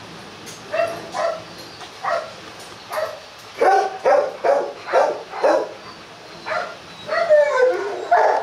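A dog barking repeatedly, single barks at first, then faster and louder barks about three and a half seconds in, with a longer falling whine near the end.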